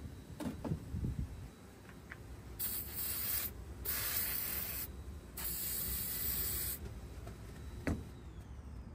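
Aerosol spray lubricant hissing out of the can in three bursts, the last one the longest, onto a car's trunk latch. A sharp knock comes near the end.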